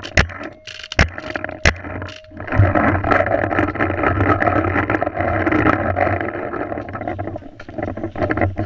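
Paintball markers firing, three sharp pops in the first two seconds. From about two and a half seconds in, loud, continuous rustling and handling noise as the head-mounted camera moves through grass and brush.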